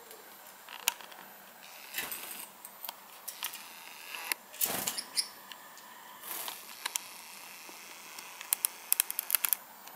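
Scattered light clicks and taps from Gouldian finches hopping about the wooden branch perches of their cage, with a duller thump about halfway through and a quick run of clicks near the end.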